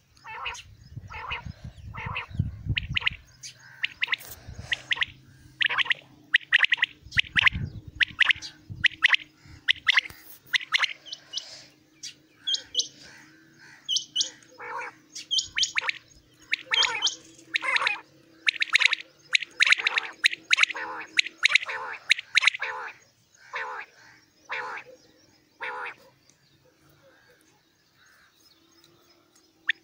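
Common quail calling: many short, sharp calls repeated over and over in quick runs, stopping a few seconds before the end and starting again right at the end. A low rumble sounds under the calls during the first three seconds and again about seven seconds in.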